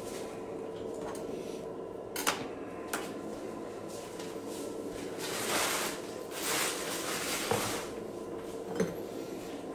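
Scattered knocks and clatter of kitchen things being handled, with two stretches of hissing noise about five and six and a half seconds in, over a steady hum.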